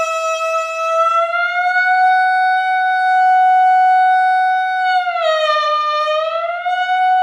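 Clarinet mouthpiece and barrel played on their own, holding one loud steady tone: the written G sharp above the staff that a correctly firm embouchure gives. About five seconds in the pitch sags lower for a second or so, the flat pitch of a too-loose embouchure, then comes back up to the steady tone.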